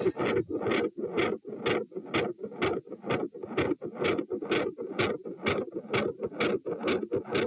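Heart sounds recorded on the chest over the mitral area: a steady, regular heartbeat at about two beats a second.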